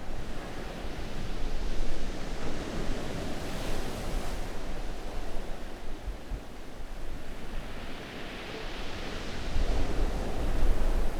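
Steady rushing noise, heaviest in the low end, swelling about two seconds in and again near the end.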